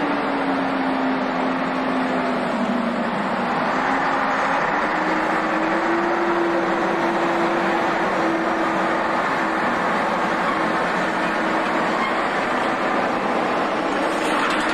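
An engine running steadily, its hum sagging a little in pitch and then rising again about four seconds in.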